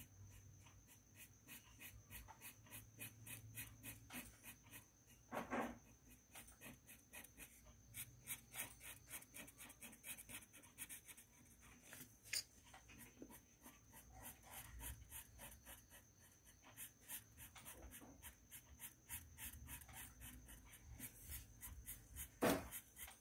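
Felt-tip marker scratching on the paper of a colouring book in quick back-and-forth strokes, about four a second, faint over a low steady hum. A louder brief rustle comes about five seconds in and again near the end.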